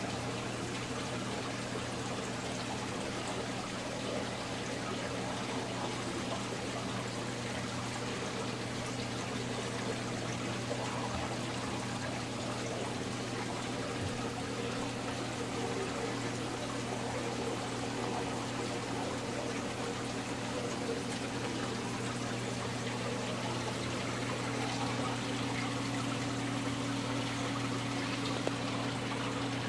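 Water trickling and pouring steadily as it circulates through a saltwater aquarium, over a low steady hum from the tank's pump.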